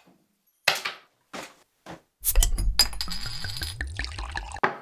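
A few short, sharp clicks and clinks of small objects being handled, then a couple of seconds of dense clattering with a deep rumble, ending in one sharp click.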